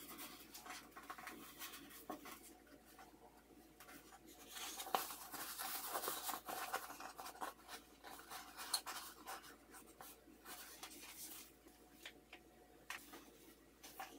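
Hands folding and smoothing a strip of grey fabric on a tabletop: faint rustling and rubbing of cloth, with light taps against the table, busiest from about five to nine seconds in.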